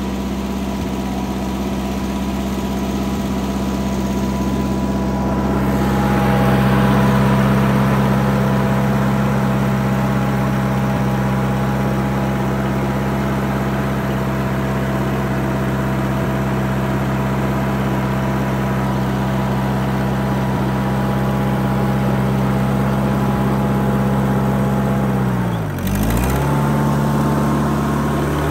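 Vermeer 630B stump grinder's air-cooled engine running steadily, growing a little louder about six seconds in. Near the end the engine speed dips sharply for a moment and then recovers.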